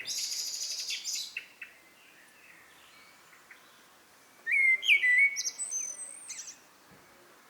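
Eurasian blackbird singing: a rapid high twitter in the first second, then after a pause a loud phrase of fluting whistles ending in squeaky high notes, about halfway through.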